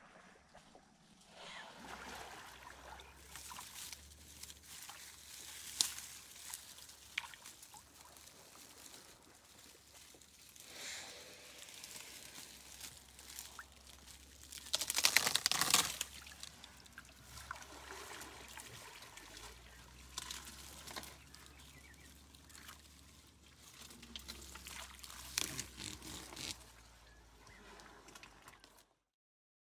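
Water trickling and sloshing around an African elephant standing in the shallows right beside the canoe, with scattered small splashes and a brief louder burst of noise about halfway through.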